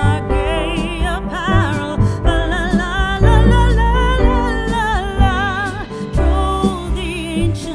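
Background music: a song with a singing voice and guitar accompaniment.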